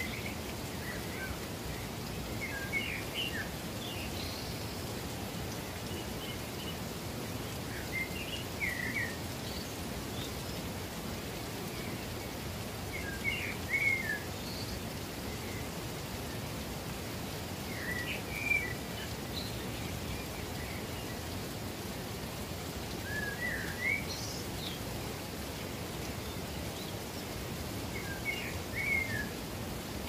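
Steady rush of a waterfall, with a songbird singing short chirping phrases about every five seconds over it.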